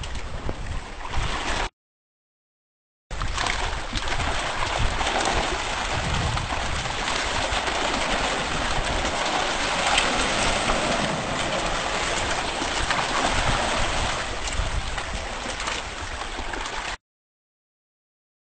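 Water churning and splashing hard in an opening in a wooden boat deck, stirred by a mass of fish thrashing at the surface. The steady splashing breaks off into silence twice, once briefly near the start and again near the end.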